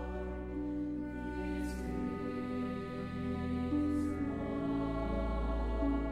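Background music: a choir singing slow, long-held notes over a sustained low bass.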